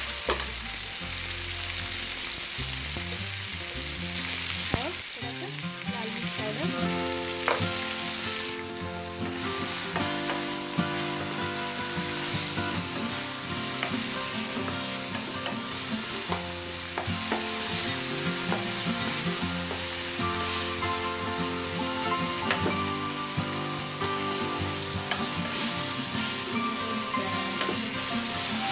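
Chopped onion, green peas and tomato sizzling in oil in a frying pan as a wooden spatula stirs them, with scrapes and scattered taps of the spatula on the pan.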